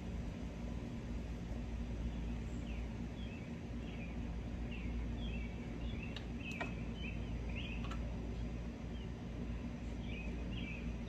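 Small birds chirping in quick short calls over a steady low outdoor rumble, with two sharp clicks a little past the middle.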